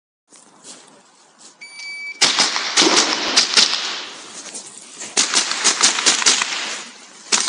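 A shot-timer start beep, then fast strings of .22 rimfire rifle shots, two quick bursts with a short lull between them.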